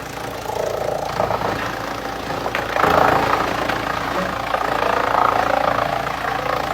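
Industrial wood chipper running with a steady engine drone. The sound grows louder and rougher about three seconds in.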